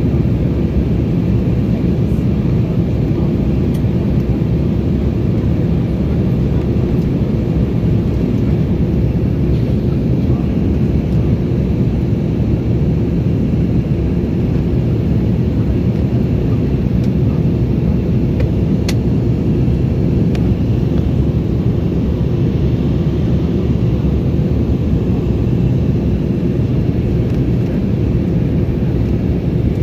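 Passenger airliner cabin in flight: steady low engine and airflow noise.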